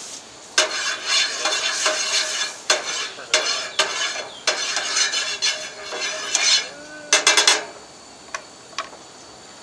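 A spork scraping and stirring around a small oiled frying pan on a hot camp stove, the pan ringing faintly under the strokes. A quick run of sharp clicks follows about seven seconds in.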